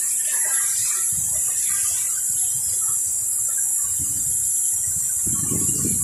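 Compressed air hissing steadily out of a leak at the steam boiler's air pilot pressure switch line, a high even hiss with a thin whistle in it. The leak is the fault that set off the boiler panel alarm. Low handling noises come and go underneath.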